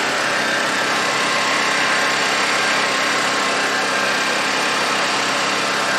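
Honda EU2200i inverter generator's single-cylinder engine running steadily on propane through a conversion kit, with no load and its spark plug access cover popped open to let in more air. It runs clean this way, which the owner takes as a sign that the propane mixture is a little too rich.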